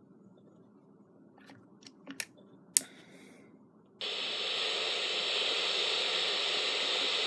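Several sharp clicks of the controls on a Raynic CR-1009 emergency radio as it is switched to the FM band, the last and loudest about three seconds in. About four seconds in, the radio's speaker comes on with a steady hiss of FM static.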